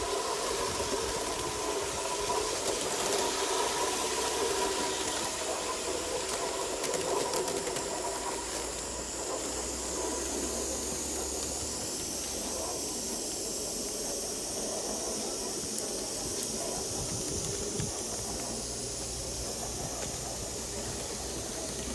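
Gauge 1 live-steam model of a JNR C57 locomotive (1978 Aster, alcohol fired) running on track with a steady hiss of steam.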